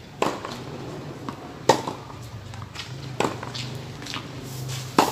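Tennis rally: four sharp racket-on-ball hits about a second and a half apart, with fainter ball bounces on the hard court between them.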